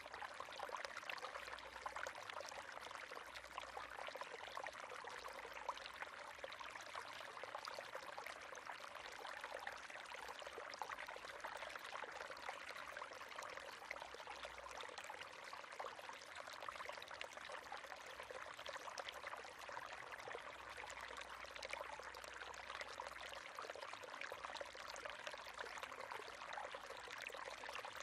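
River water running steadily over stones, a continuous babbling rush full of small splashes and gurgles.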